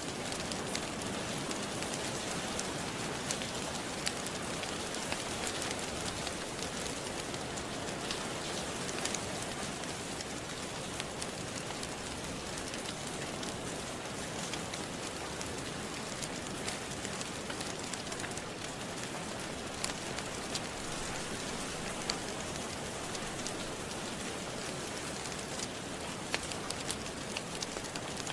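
Steady rain falling, an even hiss, with scattered sharp clicks and pops from a crackling wood fire.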